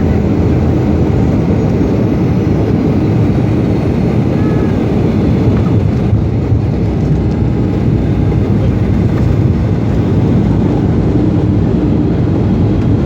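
Boeing 757-200 airliner heard from inside the cabin: a steady, loud, low rumble of engines and airflow, unchanging throughout.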